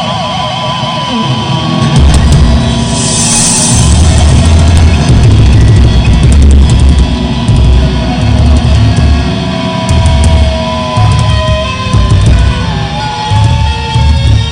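Heavy metal band playing live and very loud, with distorted electric guitars and a drum kit. A wavering high note sounds for about the first two seconds, then the full band comes in with heavy pounding low end.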